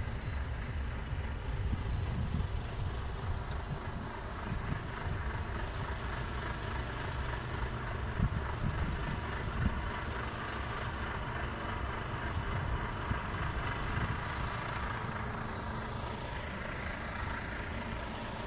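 Steady low rumble of truck engines idling in a lorry park, with a brief faint hiss about fourteen seconds in.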